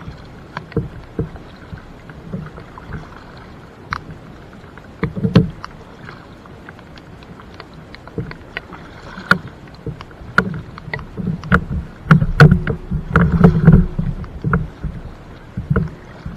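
Kayak being paddled: the paddle blades dip and splash, with irregular knocks of the paddle against the hull. Louder clusters of strokes come about five seconds in and again around twelve to fourteen seconds.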